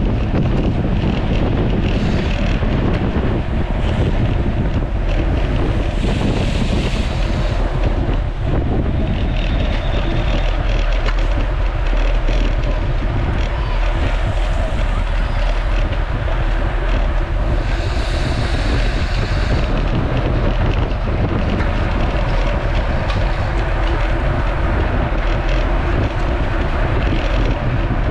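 Wind buffeting the microphone: a steady, loud low rumble, with two brief hissy swells along the way.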